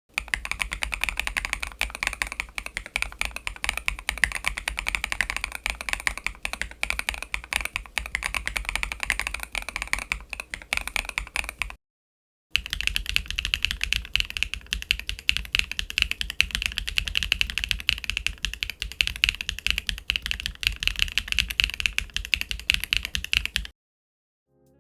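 Fast, continuous typing on a mechanical keyboard fitted with Wingtree Yunie linear switches. There are two separate runs of key clacks, with a short clean cut to silence about halfway through.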